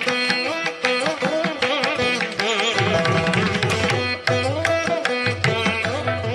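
Indian classical-style instrumental background music: plucked strings with gliding, ornamented melody over a steady beat of hand drums.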